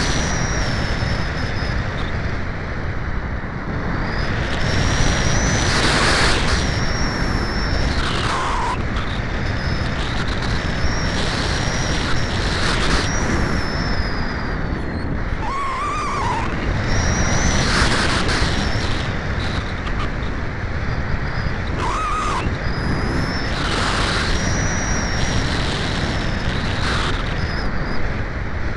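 Airflow rushing over the microphone of a small keychain camera riding on a Cularis RC glider in flight: a steady, loud rushing hiss. A faint high whine drifts in and out through it.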